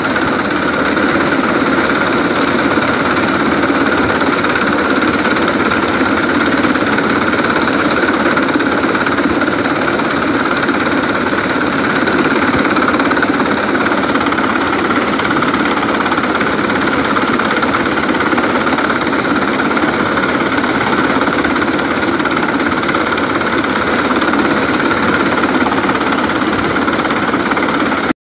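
US Coast Guard MH-60 Jayhawk helicopter hovering close overhead: loud, steady rotor chop mixed with turbine engine noise.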